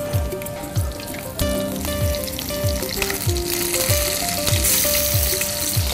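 Hot oil sizzling in a frying pan as cumin seeds and then stuffed tomatoes go in; the sizzle grows louder in the second half. Background music with a steady beat plays under it.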